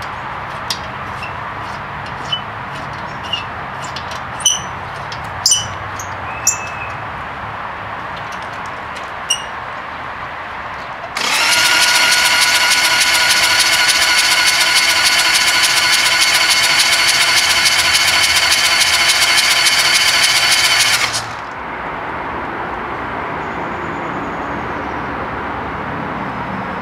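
Electric starter cranking a 1999 Harley-Davidson Evolution 1200 V-twin for about ten seconds to prime the freshly rebuilt top end with oil. The engine turns over without firing as a steady whine that cuts off suddenly, after a few short clicks earlier on.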